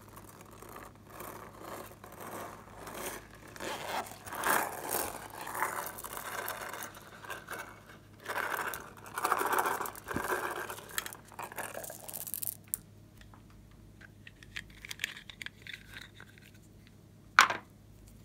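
A soft plastic squeeze container pressed over a glass dish of slime, giving squelching, crackling sounds in uneven bursts for about twelve seconds. A single sharp plastic snap near the end, as a small plastic pot is opened.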